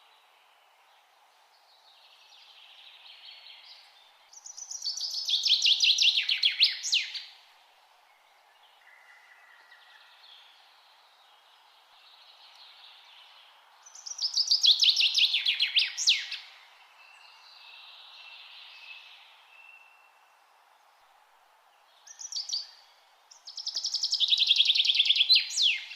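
A songbird sings the same loud phrase three times, about ten seconds apart: each is a rapid trill of repeated notes lasting about three seconds and ending in a quick downward sweep. Fainter bird chirps fill the gaps over a steady hiss.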